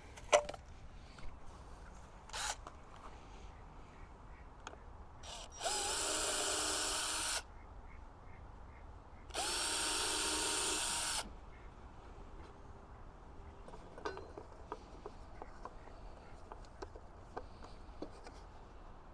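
Power drill run twice in short runs of about two seconds each, a few seconds apart, each spinning up and then holding a steady whine, during work on a wooden post. A sharp click comes near the start, and there are a few small handling ticks.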